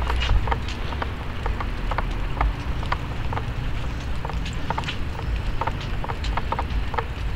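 Light clicks and taps from a service dog and its handler walking, a few per second and unevenly spaced, over a steady low rumble.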